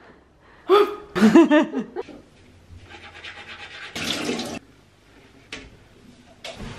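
A short vocal sound, then teeth being brushed with a toothbrush, a soft scratchy scrubbing, followed by a brief half-second burst of running water and a single click.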